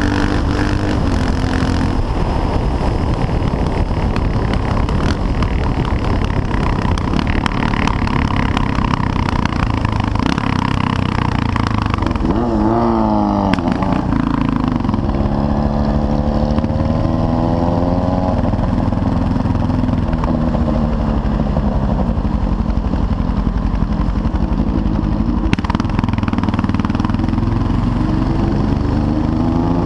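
CCM R30's 644 cc single-cylinder engine running under way, with wind rushing over the mounted camera. About twelve seconds in the engine note drops as the bike slows, then rises again as it pulls away.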